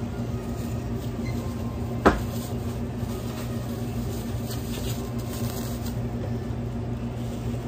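Steady electrical hum of restaurant kitchen equipment, such as refrigeration and ovens, with a single sharp knock about two seconds in.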